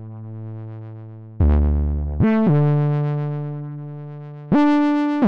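Bitwig FM4 synth playing a monophonic bass patch with glide, one note at a time. A held note gives way to a low note about a second and a half in, slides up to a higher held note, then jumps higher near the end.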